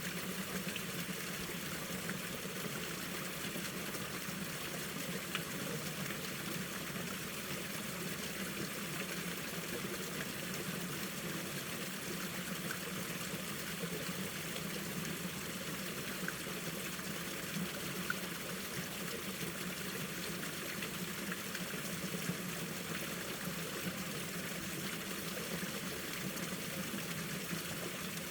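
Mountain valley stream flowing steadily, an even rushing and trickling of water with a few faint splashes.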